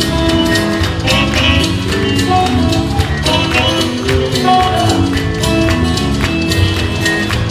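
Live amplified band music: guitar and drums playing a steady rock-and-roll beat, with no singing.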